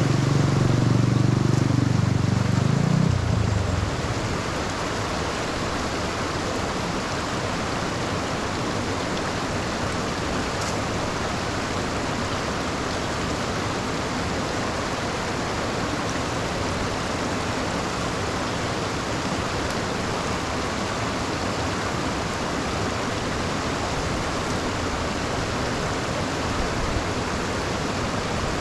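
Steady rushing hiss of rain and running floodwater, with a low rumble that fades out about three seconds in.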